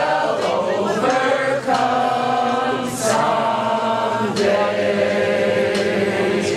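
A crowd singing together in unison, holding long notes of a second or more each, with brief breaks between the phrases.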